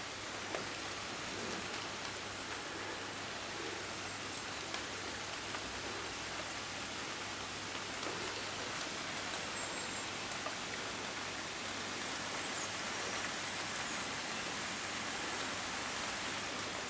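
Steady rain falling, with a few sharp taps of drops now and then.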